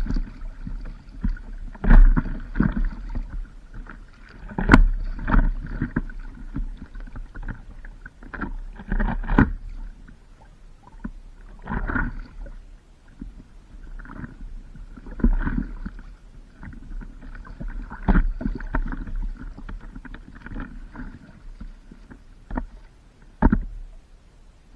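Paddle strokes splashing in seawater, one every one to three seconds at an irregular pace, with water sloshing around a stand-up paddleboard and low wind rumble on the microphone.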